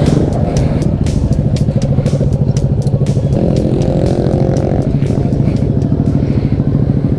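Motor scooter engine running steadily at low speed, with a higher engine note joining for a second or so in the middle.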